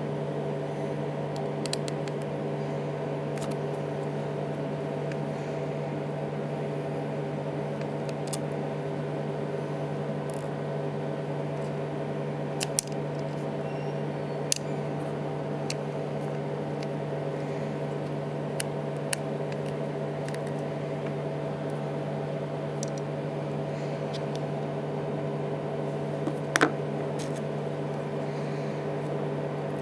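Scattered small clicks and taps of tools and parts while an iPhone 3GS is worked on for a battery replacement, over a steady low electrical hum; the loudest click comes near the end.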